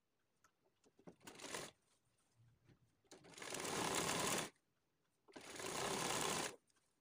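Household sewing machine stitching through folded cloth in three runs: a short burst about a second in, then two longer runs of about a second and a half each with a brief stop between. A few light clicks of the cloth being handled come before.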